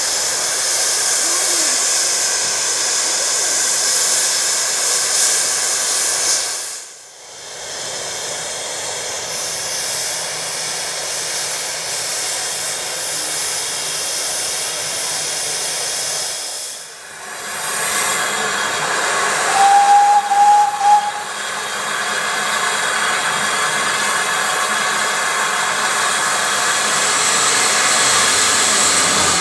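Small steam locomotive standing in steam, with a steady hiss of steam blowing off. The hiss drops away briefly twice, and a short, clear high note sounds about two-thirds of the way through.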